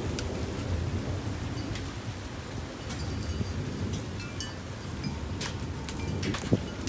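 Steady rain falling on a wet driveway and porch, with a low rumble underneath and scattered sharp drips.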